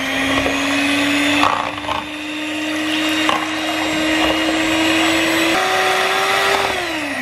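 Electric hand mixer running, its beaters whisking a thin milk mixture in a plastic bowl. The motor whine steps up a little in pitch after about five and a half seconds, then falls away near the end as the mixer winds down.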